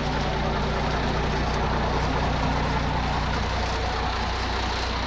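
Heavy truck diesel engine idling, a steady low hum.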